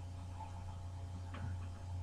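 Steady low electrical hum, with a faint short click a little past halfway.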